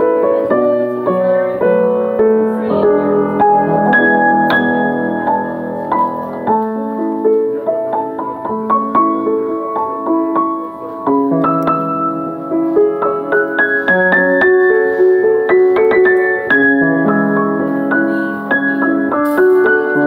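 Piano played by hand: a melody over held chords, the notes ringing on and overlapping, with no pause.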